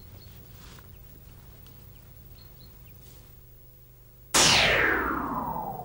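Faint outdoor background with a few small bird chirps, then about three-quarters of the way through a loud synthesized whoosh cuts in suddenly and glides down in pitch as it fades: an edited sound effect opening an advert.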